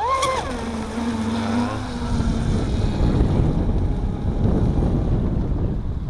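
Electric RC speedboat's motor whining up in pitch, then settling to a lower steady whine that fades out about two and a half seconds in. After that, wind buffets the microphone with a low rumble.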